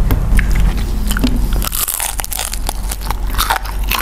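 Close-miked eating: chewing with a quick run of crisp crunches, thickest from about halfway in.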